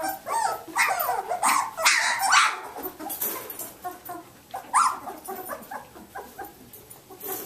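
Nineteen-day-old Samoyed puppies yipping and whining in short, high cries that rise and fall, packed close together in the first couple of seconds, with another loud one about five seconds in and smaller whimpers after.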